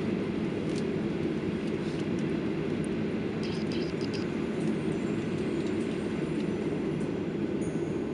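Steady rumble heard inside the cabin of a Boeing 737-800 on the ground, from its jet engines and rolling wheels, at an even level, with a few faint light rattles.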